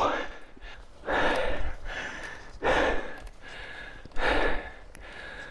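A cyclist breathing hard with heavy, noisy exhalations about every one and a half seconds, out of breath from pedalling up a steep climb.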